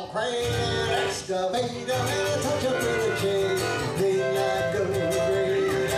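Live band music: a fiddle and an acoustic guitar playing a country-style tune together, with held fiddle notes.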